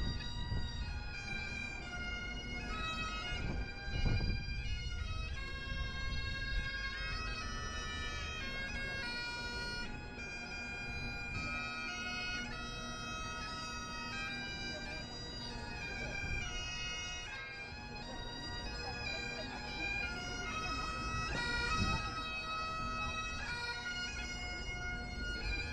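Bagpipe music: a melody played over a steady drone. Low wind rumble on the microphone runs underneath.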